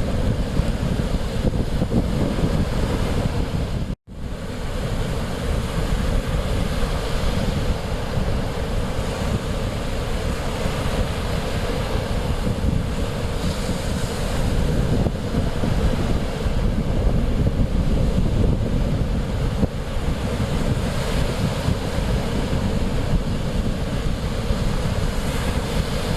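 Mediterranean Sea waves surging and washing ashore, with heavy wind buffeting the microphone. The sound cuts out for an instant about four seconds in, then resumes.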